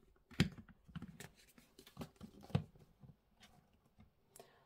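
Cosmetic cream jars and tubes being handled and set down, giving a few light knocks and clicks, the loudest about half a second in and again about two and a half seconds in.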